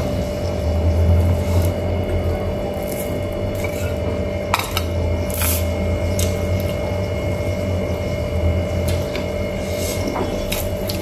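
Close-up eating sounds: fingers mixing rice and curry on a steel plate and chewing, with a few sharp clicks, the loudest about four and a half seconds in. A steady hum runs underneath.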